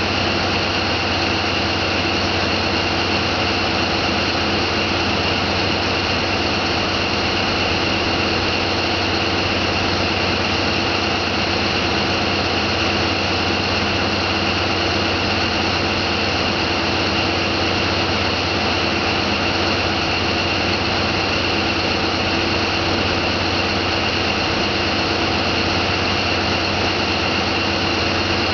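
Steady drone of a boat engine running under way, with a constant high whine over a low hum and rushing noise.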